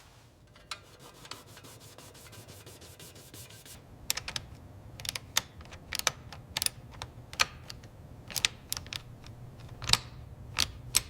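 A fast, even run of light clicks, then sharp clicks and taps at irregular intervals over a low steady hum.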